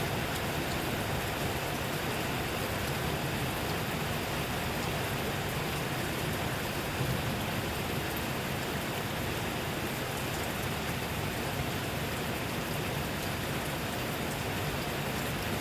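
Steady rain falling, a dense even hiss with scattered drop ticks.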